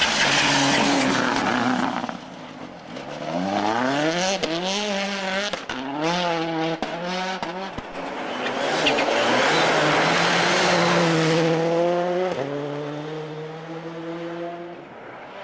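A rally car's engine running hard and accelerating through the gears, its pitch climbing and dropping back with each upshift, with a few sharp pops. Loud rushing noise from the car on the snow comes once near the start and again in the middle.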